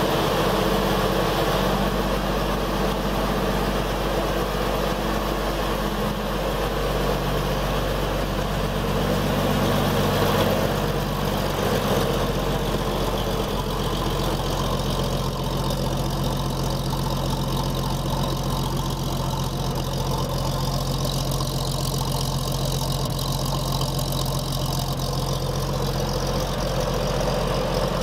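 Vintage fire engine's Waukesha F817G gasoline engine idling steadily at a constant speed.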